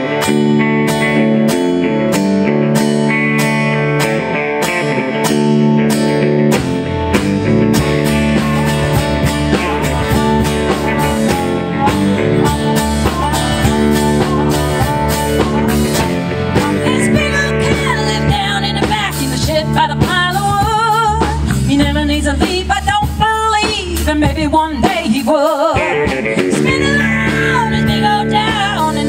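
Live blues-rock band playing: electric and acoustic guitars, bass, drums and harmonica. A woman's lead vocal comes in a little past halfway.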